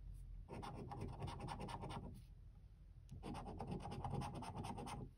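A coin scratching the scratch-off coating on a paper lottery scratchcard, in two bouts of rapid back-and-forth strokes: the first about half a second in, the second starting a little after the middle, with a short pause between.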